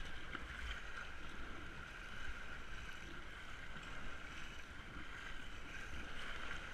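Ambient sound of a kayak on the water: wind rumbling on the microphone over water noise, with a steady high-pitched hum.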